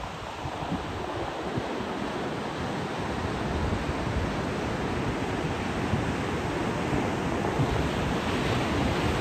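Heavy ocean surf breaking, a steady wash of waves, with wind gusting on the microphone.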